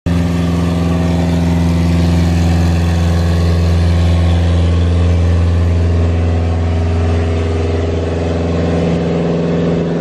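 An engine running steadily at an even, unchanging pitch, a deep hum with its lowest note easing slightly near the end.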